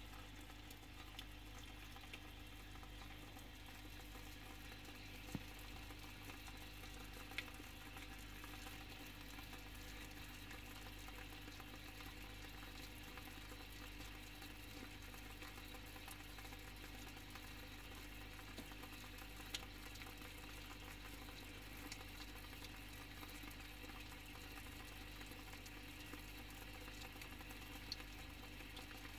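Faint, steady bubbling water with a low hum underneath, broken by a few faint scattered clicks.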